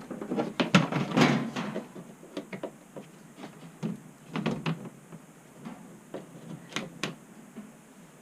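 A quick, irregular series of clicks and knocks, like hard objects being handled and set down, loudest and busiest in the first two seconds.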